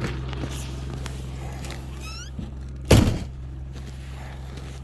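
Steady low hum of an engine running, with one loud, heavy thunk about three seconds in and a brief high chirping squeak just before it.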